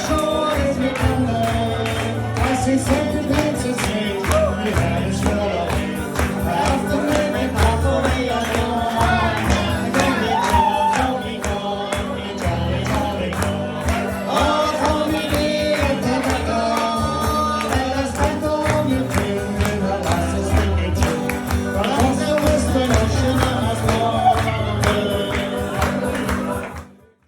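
Live Irish folk band playing and singing a song with a steady rhythm; the sound cuts off suddenly near the end.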